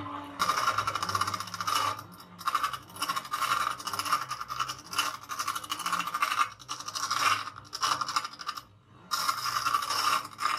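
A small pointed steel tool held against the spinning stone wheel of a hand-cranked grinder, grinding with a harsh scraping sound. It comes in bursts of one to two seconds, with short breaks between them.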